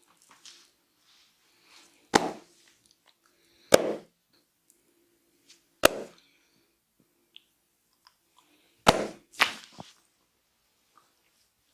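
Five sharp slaps of the barber's hands on the head and shoulders during an Indian head massage. They come about two seconds apart, the last two in quick succession.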